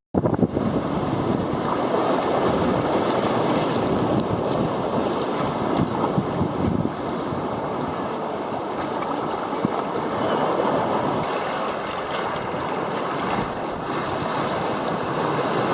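Moving water washing and rushing steadily, after a brief dropout to silence at the very start.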